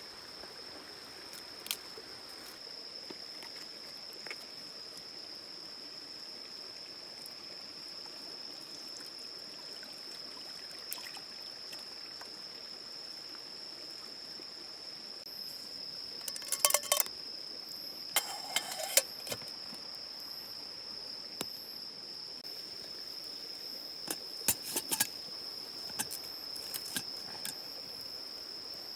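A steady high insect trill over the even rush of a river flowing nearby. Sharp clusters of clicks and clatter break in about halfway through and again near the end.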